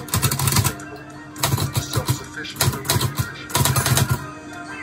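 Olivetti Lettera 25 portable typewriter being typed on: short runs of sharp key and typebar clacks about a second apart, over background music.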